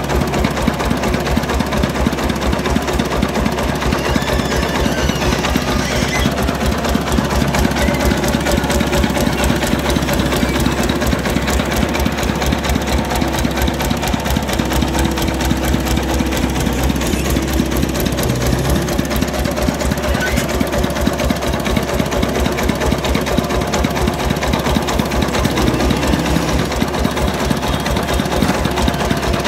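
Công nông's single-cylinder diesel engine running with a steady, rapid chug that never lets up.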